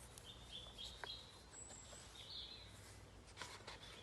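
Faint wild birdsong: a few short, high chirps over low, steady background noise.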